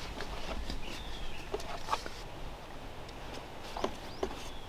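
Scattered short bird chirps, a few quick rising and falling notes, over a faint low background rumble.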